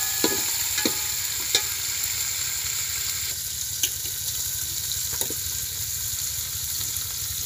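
Chopped onions and green chillies sizzling in oil in a metal pot, stirred with a metal ladle that knocks against the pot now and then.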